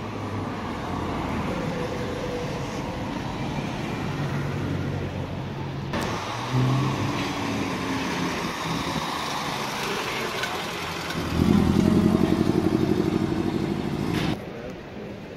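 Classic cars driving past on a city street, engines running over the hiss of traffic. About two-thirds of the way through, a nearby car's engine gets much louder, with a fast pulsing note, for about three seconds, then stops abruptly.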